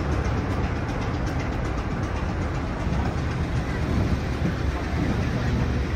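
Heritage diesel train running, a steady low rumble with faint clicking from the rails.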